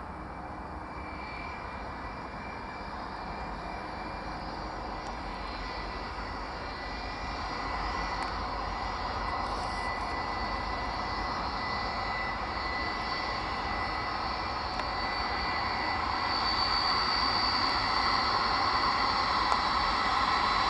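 Boeing 757 freighter's two jet engines running as it taxis and lines up on the runway, with a steady high whine over the jet noise. The sound grows steadily louder, and a higher whine joins in near the end.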